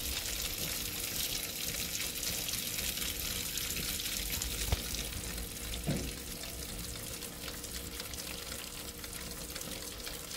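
Pork ribs and potatoes sizzling in their fat in a roasting pan inside a hot electric oven: a steady crackling hiss, with a faint click a little over halfway and a short knock about a second later.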